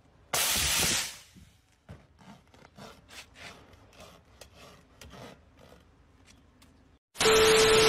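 A thin metal blade scraping and cutting at the rubber of a car tyre in repeated short strokes, about two a second. A brief loud burst of noise comes before the strokes start, and a loud hiss with a steady tone cuts in near the end.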